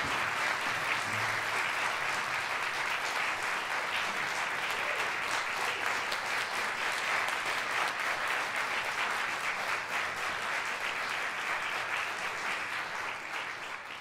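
Audience applauding steadily, a dense patter of many hands clapping that begins to die away near the end.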